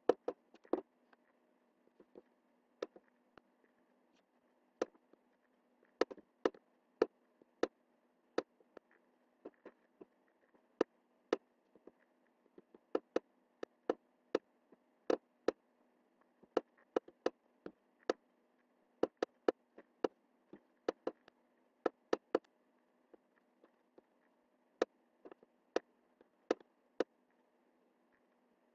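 Computer mouse button clicking at irregular intervals, sometimes two or three clicks in quick succession, over a faint steady hum.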